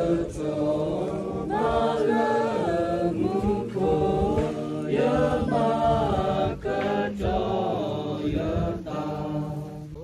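A group of voices singing together in slow phrases, holding long notes that glide between pitches, with short breaks between phrases.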